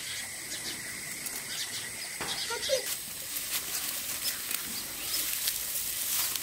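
Dry straw rustling and crackling as it is gathered, twisted and pressed into a coil by hand.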